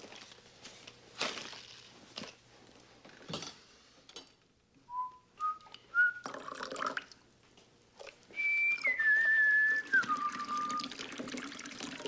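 Whistling: a few short notes climbing in pitch, then a longer, louder whistle that steps down three times. Liquid is poured from a bottle into a mug just after the first notes.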